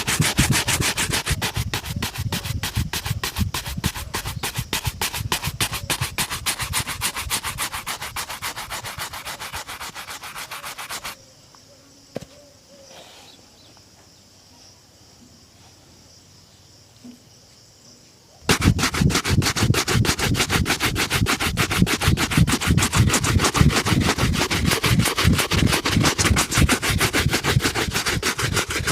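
A shoe being buffed with rapid back-and-forth rubbing strokes during a shoe shine. The strokes stop about a third of the way in, pause for several seconds with a single faint click, then resume just as fast.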